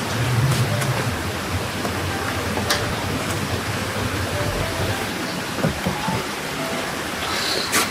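Steady rain, an even hiss, with a single sharp tap about two and a half seconds in.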